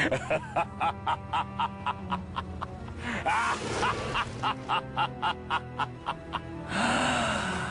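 A short music clip with a steady beat of about four ticks a second over a low sustained tone. A gliding voice-like cry comes in about three seconds in and again near the end, and the clip cuts off abruptly.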